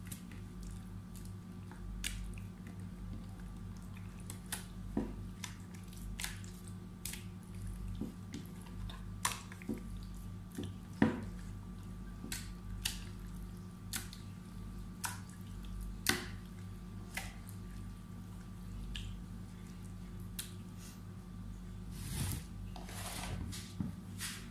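Wet squelching, sticky smacks and drips of hands rubbing a marinade into raw fish fillets on a plate. The sounds come irregularly over a steady low hum.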